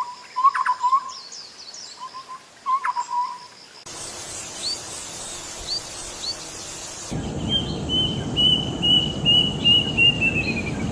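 Bird calls from several different recordings spliced back to back. First come repeated calls, then after an abrupt cut a few short high chirps over a hiss. After another cut comes a quick run of even notes over loud noise, dropping slightly in pitch at the end.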